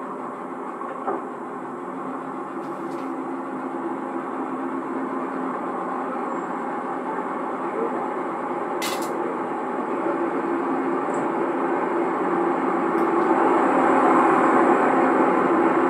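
Riding noise heard from the deck of a passenger coach coupled right behind a DE10 diesel locomotive: its engine and the wheels on the rails make a steady rumble. The rumble grows gradually louder as the train picks up speed after a horn blast. Heard on an old cassette recording, with a couple of faint clicks.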